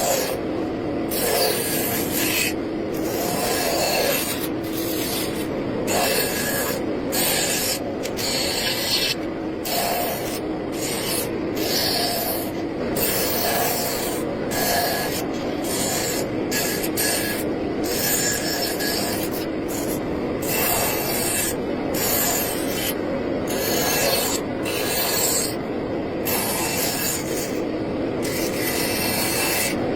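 A hand tool scraping across wood in uneven strokes, about one or two a second.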